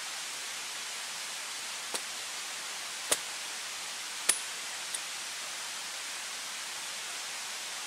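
Steady hiss with four sharp snaps of stems or twigs being handled. The two loudest come about three and four seconds in.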